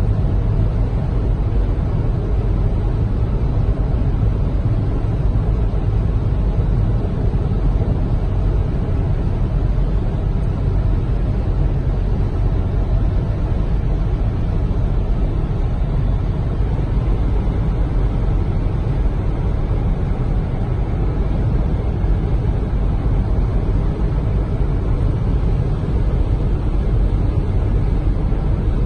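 Steady low rumble of a car driving at highway speed, heard from inside the cabin: tyre, road and engine noise with no change in pace.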